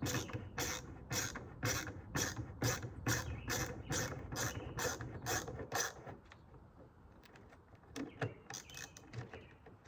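Ratcheting hand tool clicking in a quick, even rhythm of about three clicks a second while a screw on a sliding door lock is worked, stopping about six seconds in, with a few scattered clicks near the end.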